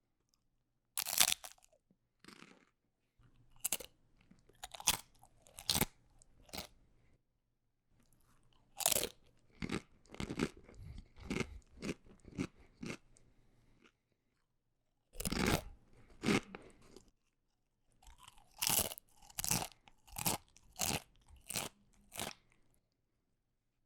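A person biting into crunchy food and chewing it, loud crisp crunches. There are four bites, each a loud crunch followed by a run of softer chewing crunches, with short pauses between them.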